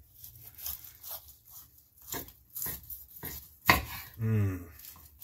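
Knife cutting between cooked pork ribs on a wooden cutting board: irregular clicks and taps of the blade against bone and board, with one sharp click about three and a half seconds in. A short low hum of a man's voice follows soon after.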